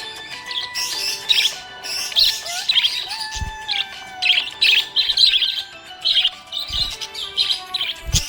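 Budgerigar chattering, with quick high chirps in clusters every half-second or so, held whistled notes and a few sliding whistles. Three brief low thumps stand out among them.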